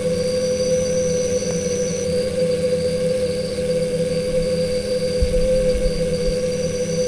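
Stingless bees buzzing at their nest entrance in a steady drone. A thin, high whine sounds over it, stops about two seconds in, and comes back near the end.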